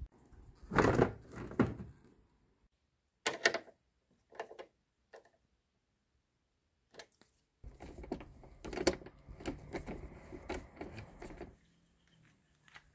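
Handling knocks and clicks from fitting a plastic car headlight unit and driving in its mounting bolt with a nut driver. A few sharp knocks about a second in, then scattered clicks, then a few seconds of rustling with clicks.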